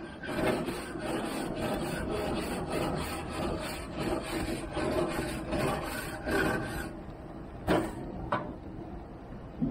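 Wire grill brush scrubbing a gas grill's grates in rapid back-and-forth strokes, metal bristles scraping on the metal bars. The scrubbing stops about seven seconds in, and two sharp knocks follow.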